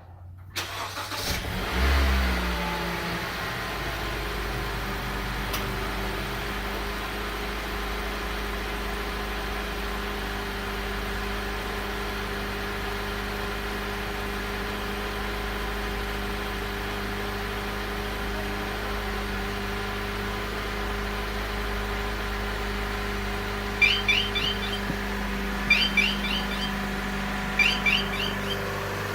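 Honda HR-V engine cranking and starting, then idling steadily. Near the end, clusters of quick high-pitched chirps repeat about every two seconds: the strange alarm sound this car makes only when the high beams are on.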